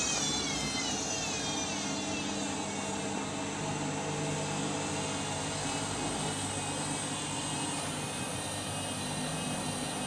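Overloaded Candy washing machine's drum motor winding down with a whine that falls in pitch over the first second or two, then a steady mechanical hum. The machine has gone into a suds lock: the drum is clogged with suds.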